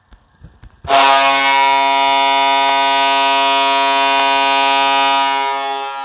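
Syracuse Crunch arena goal horn sounding one long, steady blast that starts about a second in and fades out near the end.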